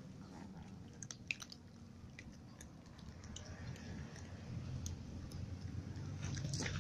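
Several cats eating dry kibble off a stone floor, crunching and chewing in irregular, scattered crunches. The sharpest crunch comes about a second in.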